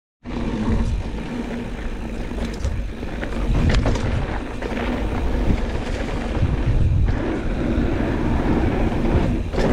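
Mountain bike riding down a dirt trail, heard from an action camera on the rider: a steady rush of wind on the microphone mixed with tyre rumble and rattling, with a few sharp knocks from bumps.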